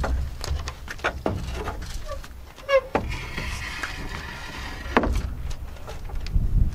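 Knocks and clatter of timber being handled during roof-truss work, several sharp hits a second or two apart, with a brief squeak just before the middle and a faint steady whine for a couple of seconds after it, over a low rumble.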